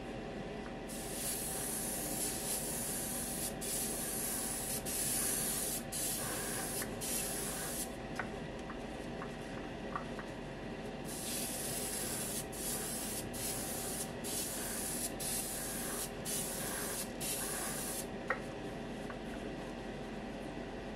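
Airbrush spraying automotive 2K clear coat at about 20 PSI: a hiss that starts and stops as the trigger is worked, in short bursts and longer passes, the longest in the second half and ending a few seconds before the end. A steady hum runs underneath.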